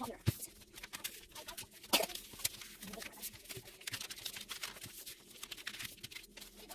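Irregular sharp clicks and crinkling rustles of paper being handled and folded, with no steady rhythm.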